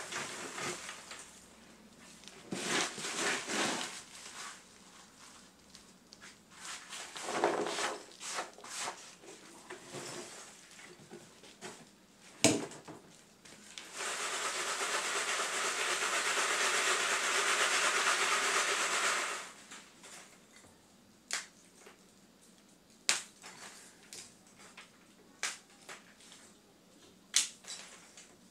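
Chopped charcoal tipped from a metal tray onto a wooden-framed sieve screen, rattling in bursts. About fourteen seconds in the screen is shaken for some five seconds: a steady rattling hiss of charcoal sifting through the mesh. After that come scattered light clinks as the lumps are picked over by hand.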